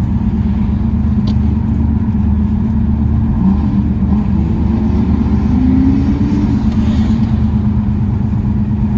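A car engine and exhaust running loud under acceleration, a steady low drone whose pitch rises a little partway through.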